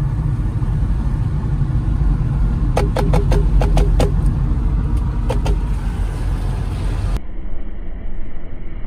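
Car driving on a wet road, heard from inside the cabin: a steady low rumble of engine and tyres. A quick run of short sharp clicks comes in the middle, and a couple more a little later.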